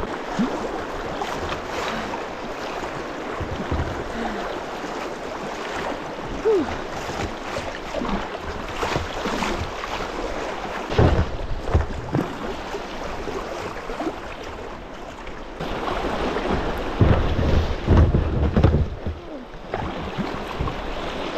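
Fast river rapids rushing around a kayak's hull, with wind buffeting the microphone, hardest about eleven seconds in and again a few seconds later.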